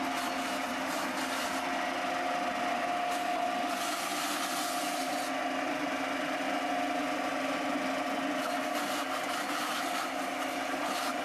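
Motor-driven coconut shredding machine running steadily, grinding coconut flesh, with a constant whine over a rough grinding noise.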